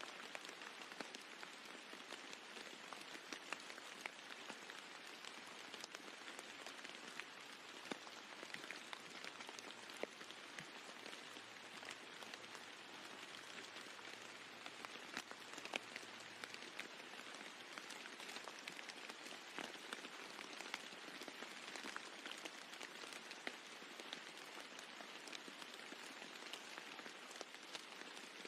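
Steady rain falling on a roof, an even hiss with many individual drops ticking sharply through it.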